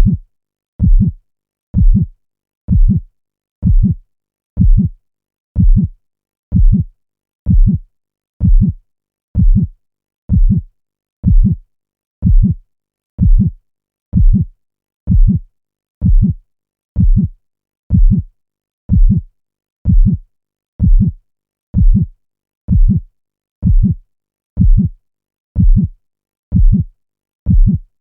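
Heartbeat sound effect: deep, steady double thumps, lub-dub, about once a second (roughly 63 a minute), with silence between beats.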